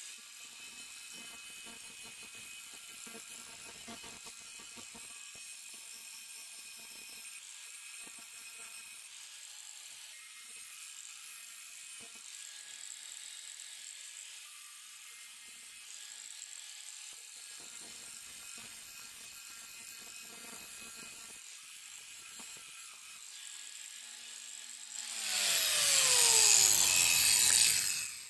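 Bosch angle grinder running with a steady whine as its abrasive disc grinds the rust off a scissor blade. Near the end it becomes much louder for a few seconds, its pitch falls as the motor winds down, and it stops.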